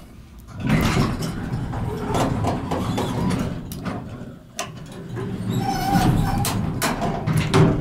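Old Dover elevator at work just after a floor button is pressed: its sliding doors and machinery run with a dense mechanical noise, broken by a sharp click partway through.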